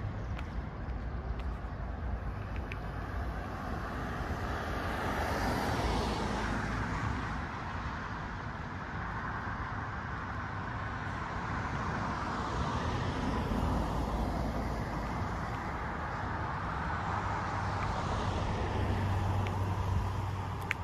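Cars passing along a road: tyre and engine noise swells and fades three times over a steady traffic background.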